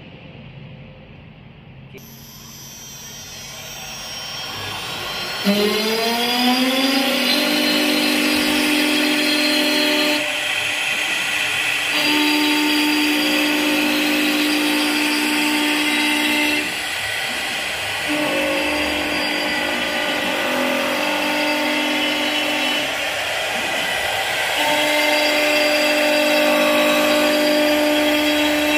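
CNC wood lathe machining a turned wooden baluster. Its high-speed electric router spindle spins up with a rising whine about five seconds in, then whines steadily while it cuts, over a hiss of wood being cut away. The whine drops out briefly twice.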